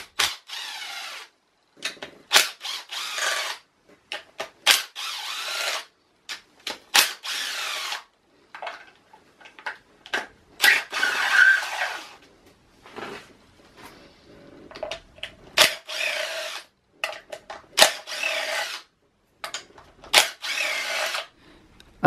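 Cordless drill-driver with an 8mm socket spinning out the BMW N47 engine's rocker cover bolts. It runs in about eight short bursts with brief gaps and sharp clicks as the socket moves from bolt to bolt. The bolts are not done up tight, so each one spins out in a second or so.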